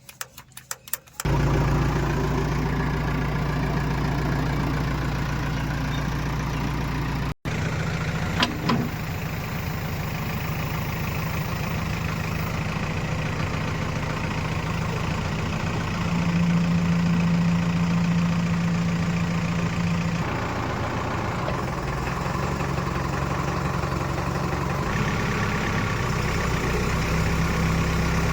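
Heavy diesel engine of the earth-moving machinery running at a steady speed, its note stepping up for a few seconds about halfway through and again near the end. The sound cuts out briefly about seven seconds in and is followed by a couple of sharp clicks.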